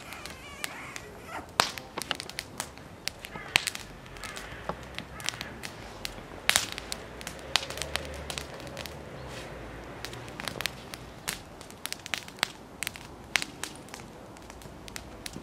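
Wood fire in a metal fire bowl crackling, with frequent sharp pops at irregular intervals.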